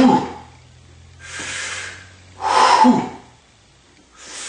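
Forced, heavy breathing of a man pushing a heavy leg press: sharp, loud exhales about two and a half seconds apart, with quieter breaths between them.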